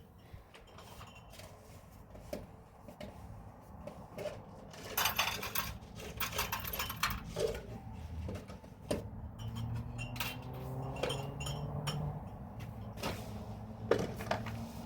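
Scattered knocks and clatter of objects being handled, busiest about five to seven seconds in, with a low steady hum that sets in about halfway through.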